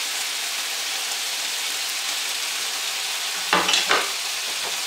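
Chopped beef and onions sizzling steadily in a hot frying pan as the onions caramelize. Near the end come two short clatters, about a third of a second apart.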